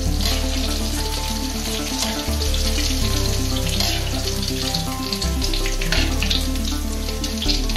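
Battered squid deep-frying in hot oil in a steel wok, a steady sizzle as the cooked pieces are scooped out with a wire spider strainer.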